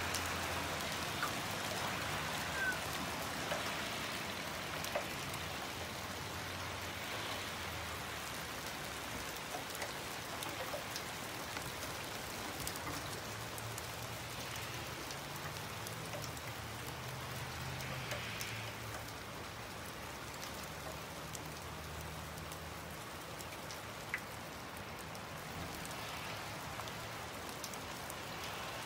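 Steady rain falling on pavement and grass, with scattered sharper ticks of single drops.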